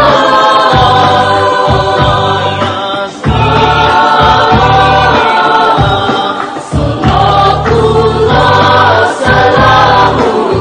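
A church choir of women and men singing a selawat, an Islamic devotional song praising the Prophet, together without instruments, in phrases with short breaks between them.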